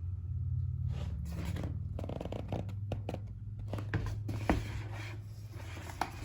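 Rustling and scraping as a welding helmet and its packaging are handled during unboxing, with two sharp clicks, the louder about four and a half seconds in, over a steady low hum.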